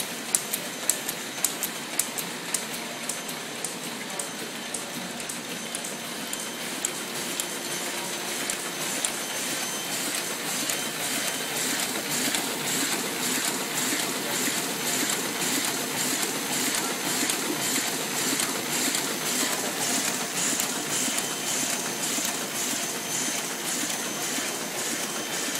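Heidelberg SORMZ two-colour sheet-fed offset press running, a steady mechanical clatter of rollers and sheet feed. A regular ticking of about two per second stands out in the first few seconds, and the clatter swells a little louder several seconds in.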